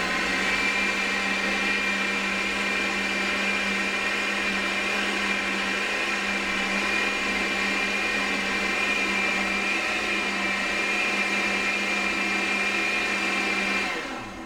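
Countertop blender running steadily at speed, puréeing a thick green tomatillo and chile salsa. Near the end it is switched off and the motor winds down.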